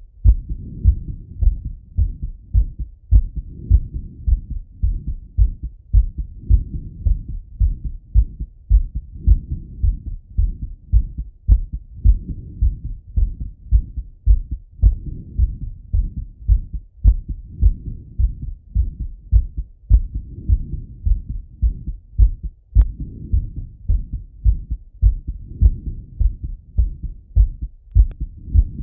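A man's heartbeat heard through a Littmann stethoscope chest piece: a steady, regular train of low lub-dub thumps, his heart still beating after a workout set.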